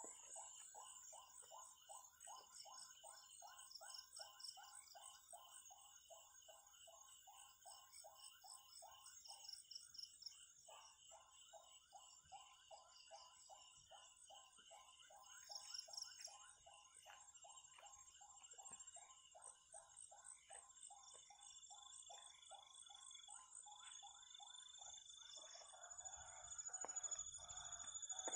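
Faint night chorus: insects trilling steadily, under a lower animal call repeating about three times a second, which pauses briefly about ten seconds in. A short rustle of movement comes near the end.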